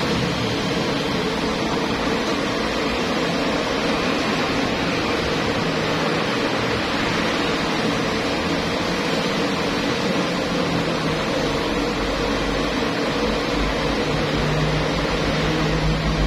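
High-pressure gas burner running full under a large aluminium steamer pot, a steady rushing noise; a low rumble builds near the end.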